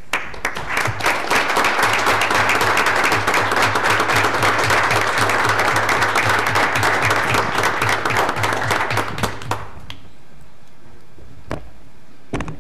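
Room audience applauding for about nine and a half seconds, then stopping; two brief knocks follow near the end.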